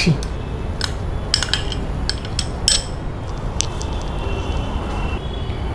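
Metal spoon clinking against a small glass bowl as chopped tomato is scooped out into a steel mixing bowl: a handful of short clinks, mostly in the first three seconds, over a steady low background rumble.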